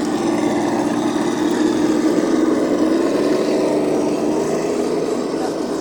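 A motor running steadily with a pitched hum, rising slightly in pitch about two seconds in and easing back.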